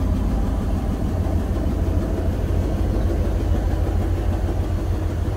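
2008 GMC chipper truck's engine idling with a steady low rumble.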